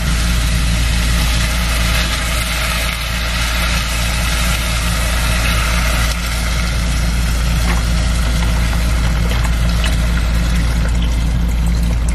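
A steady, loud, low mechanical hum, like a motor or fan running without change, with a little liquid pouring into a pot near the end.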